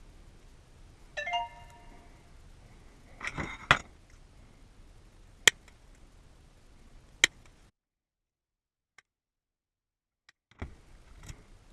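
Small metal lock parts and tools handled on a hard surface. A short metallic ring about a second in is followed by a few scattered clinks and sharp clicks.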